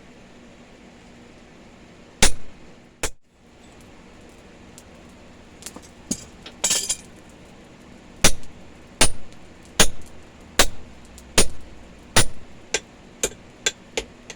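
Hand hammer striking a punch to drive a hole through hot steel on the anvil. There are two hard blows, then a steady series of strikes about every 0.8 s that grow lighter and quicker near the end, as the plug is punched out.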